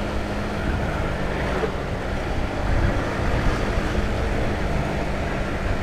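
Honda CBR150R single-cylinder engine running steadily at cruising speed, a constant hum under wind rushing over the helmet microphone.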